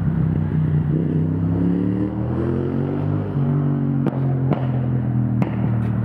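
An engine running steadily, its pitch rising slowly for a couple of seconds, with a few sharp clicks near the end.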